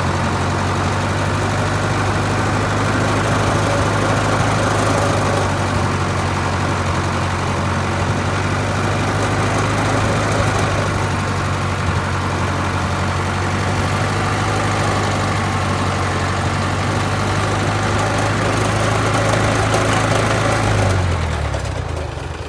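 Sawmill engine running steadily to power the log lift's hydraulics; near the end its pitch falls and it winds down.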